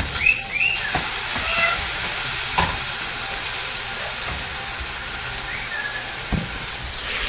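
Food sizzling steadily as it fries in a pan, with a few sharp knocks of a spatula against the pan. Several short, faint rising chirps from a pet parrot break in about half a second in, again near a second and a half, and near five and a half seconds.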